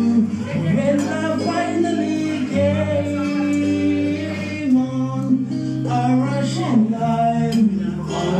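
Karaoke: a man sings into a microphone over a backing track of music with steady bass notes, amplified through a speaker.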